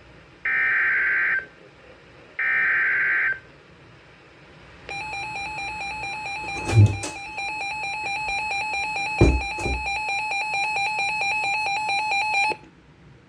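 Reecom R-1630 weather alert radio receiving an Emergency Alert System warning: the last two of the three data bursts of the SAME header, each about a second long, then after a pause an alert tone pulsing rapidly for about seven and a half seconds that cuts off suddenly. A few knocks from handling the radio land during the tone.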